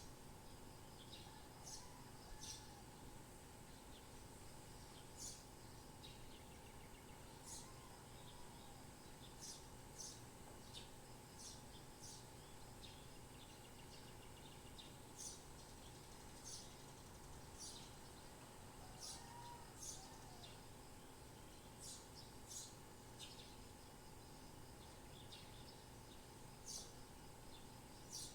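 Faint birds chirping: short, high chirps every second or two, some in quick pairs, over a steady low background hum.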